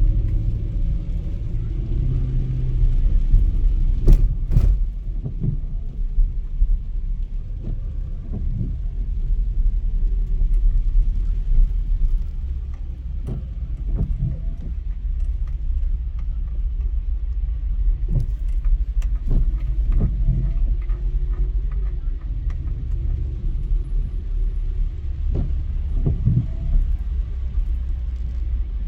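Steady low rumble of a car driving on the road, with a few sharp clicks or knocks scattered through.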